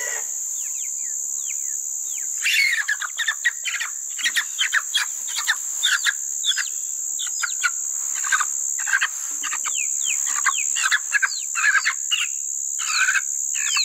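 Many short, high bird chirps, quick and irregular, starting about two and a half seconds in, over a steady high-pitched drone of crickets or other insects.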